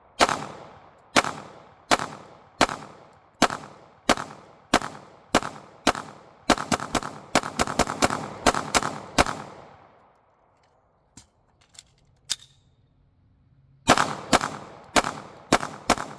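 Gunshots from a 9mm Glock 19-pattern pistol: about nine shots at roughly one every 0.7 s, then a faster string of about ten, then a pause of about four seconds with a few faint clicks, and rapid fire resumes near the end.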